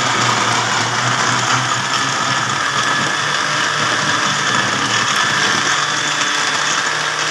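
Electric blender motor running steadily at speed, blending yogurt, milk, ice and sugar into lassi. The sound is loud and even, with a low motor hum under the churning.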